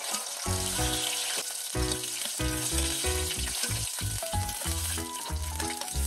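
Batter-coated capelin deep-frying in hot oil: a steady, dense sizzle. Background music with a bass line and melody notes plays over it.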